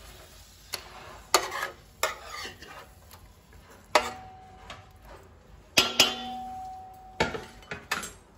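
A spatula and a metal spoon knocking and scraping against a thin aluminium pan as large fish fillets are turned in shallow frying oil, with a light sizzle underneath. There are several sharp clanks, and two of them, about four and six seconds in, leave the pan ringing briefly.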